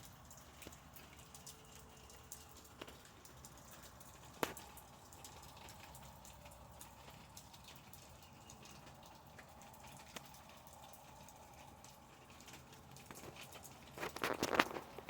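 Faint, scattered pecking taps and clicks of birds feeding, with one sharper tick about four and a half seconds in and a quick flurry of clicks near the end.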